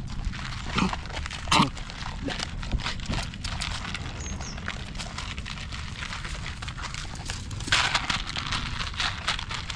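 Dogs eating dry kibble from plastic bowls: irregular crunching and clicking as they chew and their muzzles knock the bowls. Two short voice-like sounds come about a second in, the second the loudest, and a brief rustle comes near the end.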